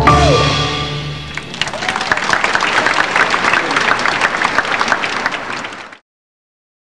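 The final held chord of a children's choir and its accompaniment dies away, then a large audience applauds. The applause fades out and cuts to dead silence about six seconds in.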